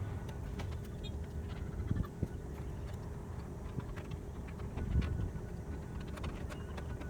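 Scattered light clicks and taps over a steady low rumble, with a few slightly louder knocks about two seconds in and again near five seconds.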